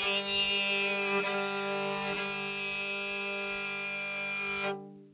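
Morin khuur (Mongolian horsehead fiddle) being bowed: sustained melody notes over a steady low drone, fading out shortly before the end.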